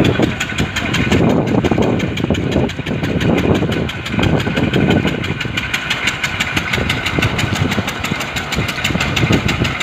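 Engine running steadily with a fast, even beat, and swells of louder low rumble every second or two.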